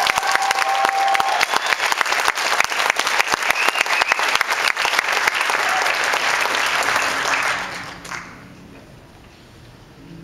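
Audience applauding after an a cappella song ends, with one held note over the clapping in the first second or so. The applause dies away about eight seconds in.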